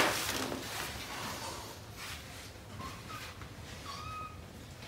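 A kitten mewing: a few short, high mews about three and four seconds in, after a sharp knock at the very start.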